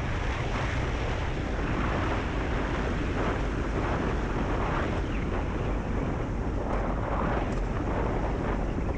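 Steady wind rush on the microphone of a Honda CB300F, a single-cylinder motorcycle, cruising at road speed. The engine is running faintly underneath.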